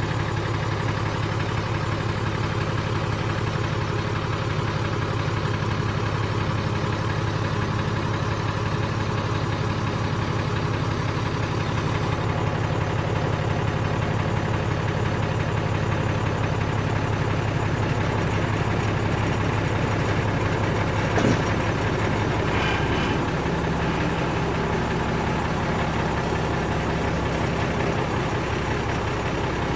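Mercedes-Benz Unimog 406 diesel engine running steadily at low revs in super crawl gear. About 21 seconds in there is one sharp clunk, after which the engine note changes and holds steady at a new pitch.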